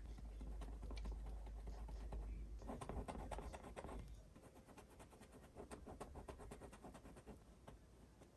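Bristle paintbrush stroking and dabbing oil paint on canvas, a dry scratchy brushing. A heavier scrubbing stroke comes about three seconds in and lasts about a second, followed by lighter, quicker dabs.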